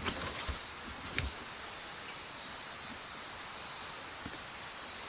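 A steady, high-pitched chorus of insects chirring, with a couple of faint knocks in the first second or so.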